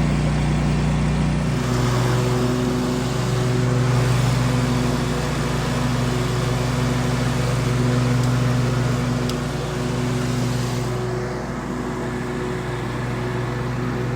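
Riding lawn mower engine running steadily. Its pitch drops slightly about a second and a half in and then holds.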